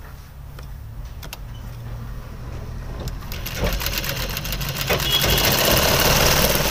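Sewing machine fitted with a new size 18 needle, test-stitching cloth: it runs quietly at first, then from about three seconds in sews at speed with a fast, even stitching rhythm that grows louder. The run is stitching cleanly, with no skipped stitches, now that the needle is changed.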